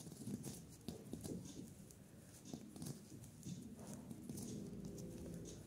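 Size 11 metal knitting needles clicking and tapping lightly and irregularly against each other as stitches are purled in wool yarn.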